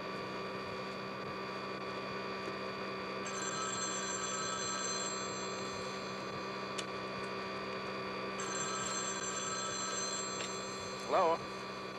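Desk telephone ringing twice, each ring under two seconds long, over a steady electric motor hum from the skate grinder. A short, loud wavering tone comes near the end.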